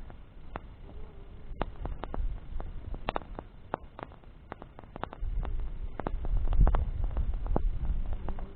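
Wood bonfire crackling, with irregular sharp pops several times a second, over a low rumble that grows louder about halfway through.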